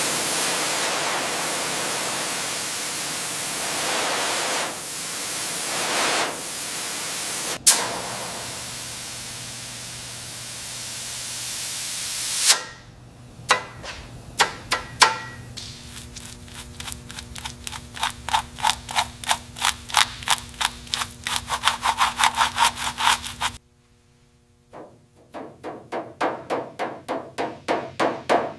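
Steady harsh rasping noise of metalwork on a car body for about twelve seconds, cutting off suddenly. Then quick repeated hammer blows on sheet metal that speed up to about four a second, stop briefly near the end, and start again.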